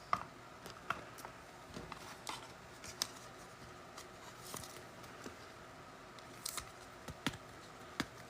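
Faint, scattered clicks and snaps of NFL trading cards being handled and flipped through by hand.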